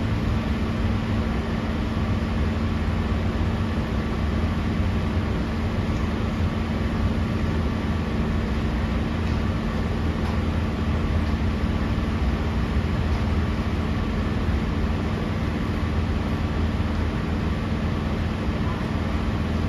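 Sydney Trains K set double-deck electric train running between stations, heard from inside the carriage: a steady low rumble with an even hum over it.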